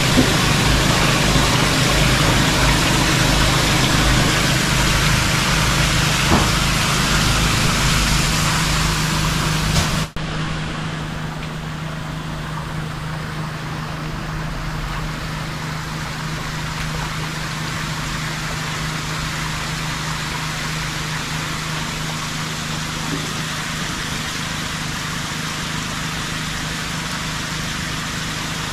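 Water churning and splashing in a live-fish holding tank over the steady hum of its circulation pump. About ten seconds in, the splashing drops off sharply, leaving the pump's hum and a lighter hiss of moving water.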